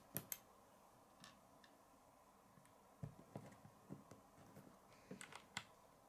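Faint, scattered clicks and taps of small plastic Lego pieces being handled and pressed together, with two sharp clicks right at the start and a small cluster of clicks near the end.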